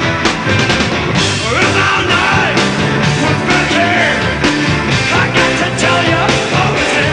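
Hard-rock band playing live: a drum kit with constant cymbal strokes, bass and electric guitar, loud and dense throughout.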